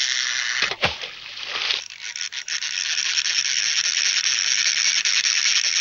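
Cartoon sound effect: a steady, high hissing rattle. It dips with a brief swoop about a second in, then runs on evenly.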